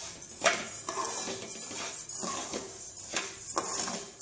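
A spatula scraping and stirring rice grains around a kadhai as the rice dry-roasts, in a run of irregular scraping strokes.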